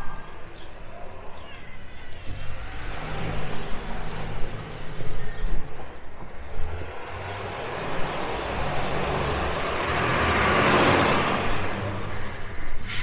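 A motor vehicle passes on the street, its road noise swelling to a peak about ten to eleven seconds in and then easing off, over a steady low rumble. A sharp click near the end.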